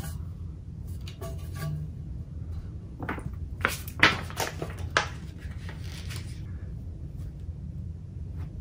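A handful of sharp metallic clicks and clinks from aluminium monitor-stand parts being handled. They come between about three and five seconds in, the loudest near four seconds, with a few fainter ones after, over a steady low hum.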